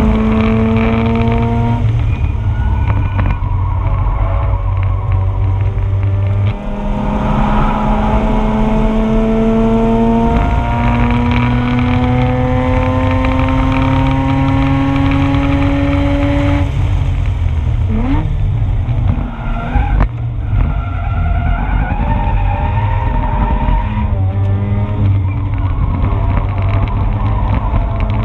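2004 Mazda RX-8's two-rotor rotary engine at full throttle on track, its pitch climbing steadily in each gear with short breaks at the upshifts. About two-thirds of the way through it drops and wavers under braking and cornering, then climbs again near the end.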